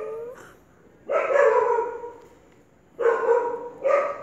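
A dog barking several times in separate bursts, one of them drawn out for nearly a second.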